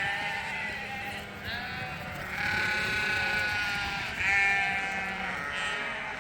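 A pen of bottle-fed lambs bleating, several voices calling over one another without a break.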